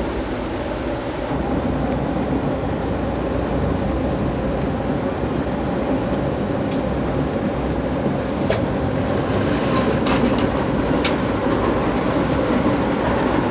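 Passenger train running steadily at speed, heard from inside the car: a continuous rumble of wheels on rail, with a few sharp clicks in the second half.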